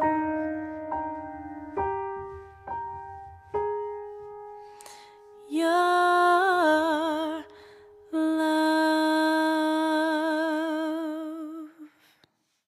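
Close of a song: a few piano notes struck and left to ring, then a woman's voice holding two long notes with vibrato over the piano, the second fading out near the end.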